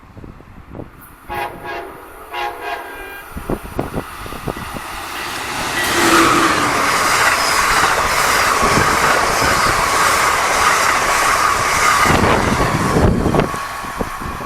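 Electric passenger train on the Northeast Corridor sounding its horn in two short blasts, then passing close by with a loud rush of wheels and a steady whine, the noise building up about six seconds in and easing near the end. Wind buffets the microphone.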